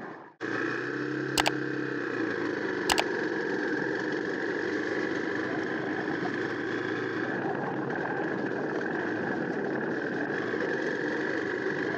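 Hero XPulse 200 FI's single-cylinder engine running steadily at low speed while riding a gravel and dirt track. Two short sharp knocks come in the first three seconds.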